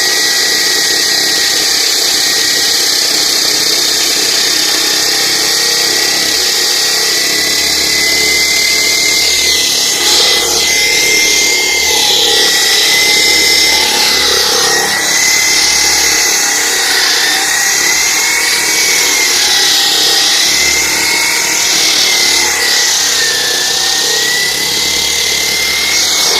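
A power saw cutting a concrete slab, running without a break. A high whine wavers up and down in pitch as the blade takes the load, over a steady gritty hiss.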